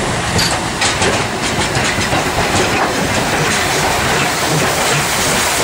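Steam locomotive and its tender rolling slowly past, the wheels clicking over the rail joints, with a steady hiss of steam.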